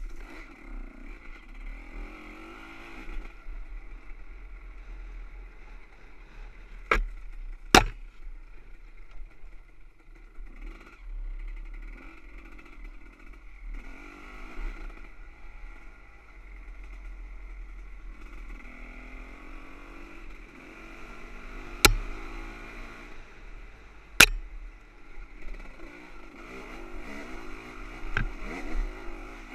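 Off-road motorcycle engine riding a rough dirt trail, its revs rising and falling again and again, with a few sharp knocks and clatter, two close together early and two more later on.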